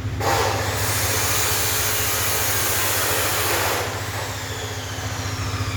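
An engine idling steadily with a low hum. A loud hissing rush lies over it from just after the start until about four seconds in.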